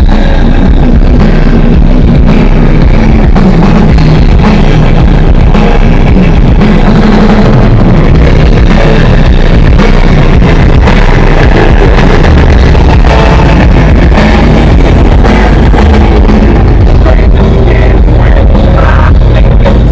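Music with heavy bass played very loud through a competition car-audio system's wall of subwoofers, the recording pinned near full level throughout.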